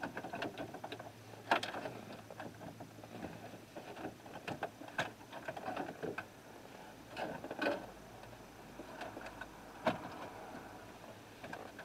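Faint handling noise of an aftermarket car radio and its wiring being pushed into a plastic dash opening: soft rustling and scraping with a handful of sharp plastic clicks and knocks.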